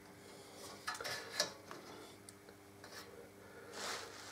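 A few faint ticks and light taps of metal motorcycle parts being handled, a small cluster about a second in and single ones later.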